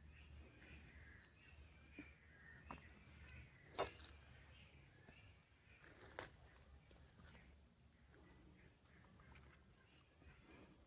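Faint chorus of night insects: several steady, pulsing high-pitched trills running together. A few sharp clicks cut through it, the loudest about four seconds in and another about six seconds in.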